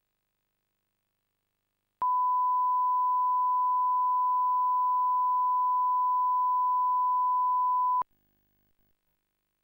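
Steady 1 kHz reference tone, the line-up tone that accompanies colour bars on a video tape. It switches on about two seconds in, holds one unchanging pitch for about six seconds, and cuts off sharply.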